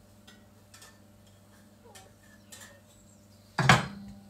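Faint clicks and scrapes of a metal spatula in a small frying pan. About three and a half seconds in comes one loud, short clatter of cookware as the pancake is moved across to the ceramic plate.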